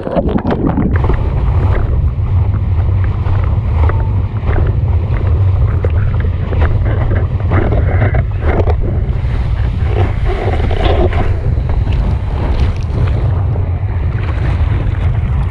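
Strong wind buffeting the microphone of a boom-mounted action camera, over rushing water and slaps of spray as a windsurf board speeds across choppy sea. A burst of spray hits the camera right at the start.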